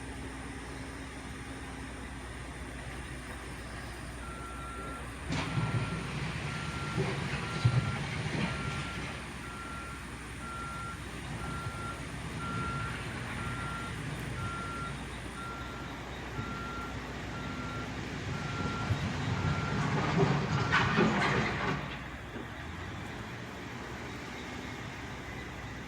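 Backhoe's reversing alarm beeping evenly for about sixteen seconds as it backs up, over the steady running of its diesel engine. The machine gets louder twice, about five seconds in and again around twenty seconds in.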